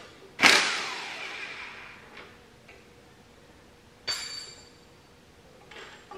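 Metal hand tools clanking against the tractor's housing during bolt removal: a loud clank about half a second in that rings on for about a second, a sharper ringing clank about four seconds in, and a few small knocks between.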